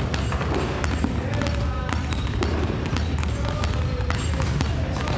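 Several basketballs being dribbled on a wooden gym floor, many irregular overlapping bounces.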